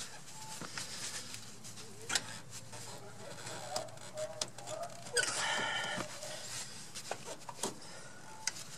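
Metal clicks and clinks of locking pliers and a steel brake shoe return spring as the spring is pulled over its anchor post on a drum brake. A brief pitched call sounds in the background about five seconds in.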